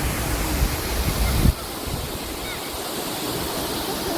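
Waterfall's rushing water, with wind buffeting the microphone for the first second and a half. About a second and a half in the rumble cuts off abruptly, leaving a steadier rush of water with a few faint high chirps.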